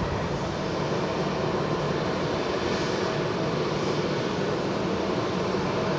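Embraer 175's GE CF34 turbofans running at taxi power: a steady jet rumble and hiss with a faint constant whine.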